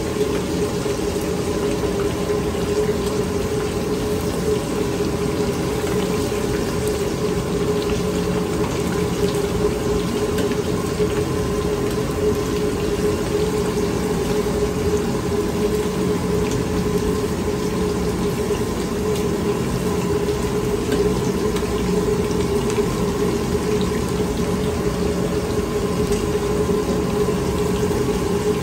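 Lobster tail pieces deep-frying in a wok of hot oil, sizzling and bubbling steadily, over the steady low roar of a high-flame gas wok burner.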